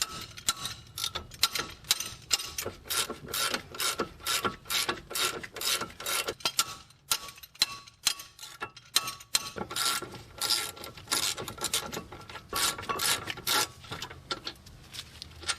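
Hand ratchet wrench clicking in quick repeated strokes, in spells with short pauses, as the two 15 mm brake caliper bracket bolts are loosened and backed out.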